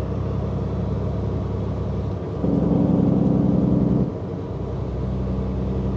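Semi-truck's diesel engine droning steadily, heard from inside the cab. About two and a half seconds in it grows louder for under two seconds, then drops back.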